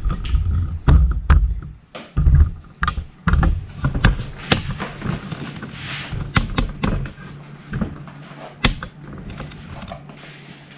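Cardboard shipping box and packaging being handled: flaps pushed open with dull thumps and scrapes, heaviest in the first few seconds, then lighter clicks and rustling of cardboard, foam and plastic.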